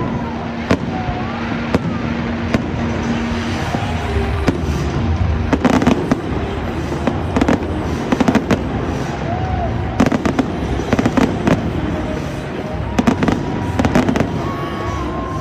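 A fireworks display: shells bursting in a run of sharp bangs and crackles. The bangs come scattered at first and thicken into dense clusters from about a third of the way in.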